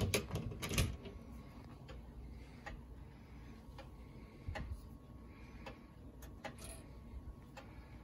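Soft, uneven clicks and ticks from a grandfather clock's movement as its minute hand is turned by hand to set off the chime. A few louder handling knocks come in the first second.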